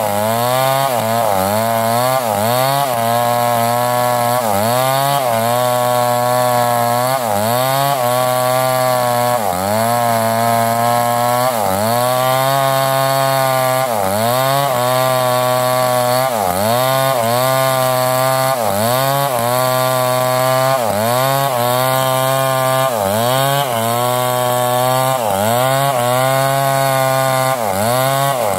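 Two-stroke chainsaw ripping a mango log lengthwise, held at high revs. Its pitch sags and recovers about every second and a half as the chain bites into the cut under load.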